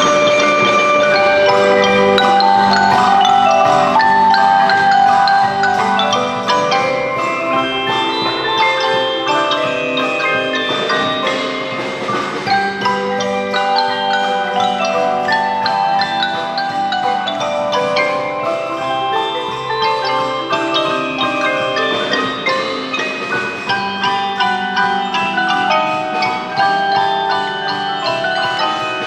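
School percussion ensemble playing a piece of tuned percussion music: many pitched notes struck in quick succession, slightly louder for the first few seconds.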